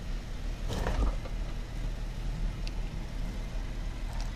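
Jeep engine running steadily at low revs, with a short rush of noise about a second in.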